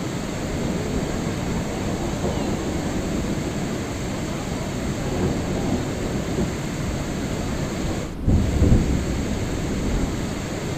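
Steady rain with a low rumble, thunder-like, about eight seconds in, just after a very brief drop in the sound.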